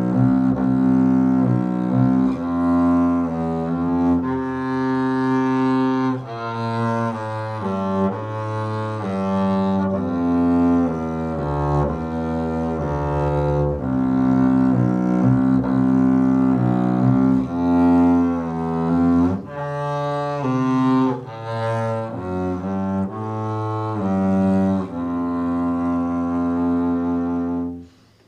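Double bass played with the bow: a slow melodic line of sustained notes, changing every second or two, that breaks off briefly near the end.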